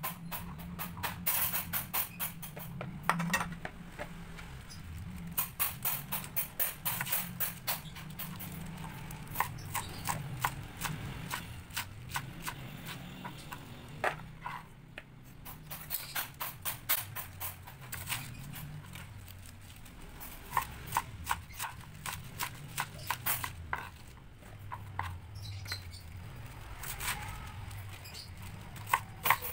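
Kitchen knife chopping carrot and napa cabbage on a plastic cutting board: runs of quick taps, several a second, broken by short pauses.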